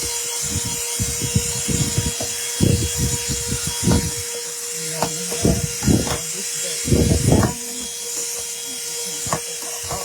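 Handheld corded car vacuum cleaner running with a steady motor whine and hiss. Irregular knocks and scrubbing come from its brush nozzle being worked over the car interior.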